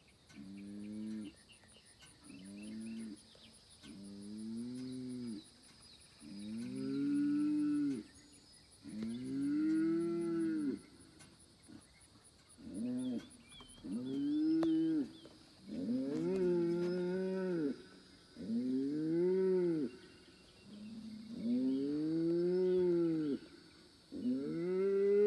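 Young Angus-bred bull bellowing again and again, about a dozen long calls, each rising then falling in pitch. The calls come every couple of seconds and grow louder toward the end.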